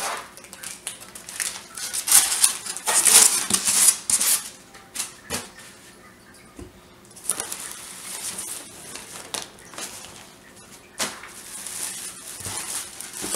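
Packing in a fish-shipping box being handled. A polystyrene foam cooler lid scrapes and squeaks as it is lifted off, and newspaper and a plastic bag rustle and crinkle. The noise comes in irregular bursts, loudest about two to four seconds in, with a few sharp clicks later.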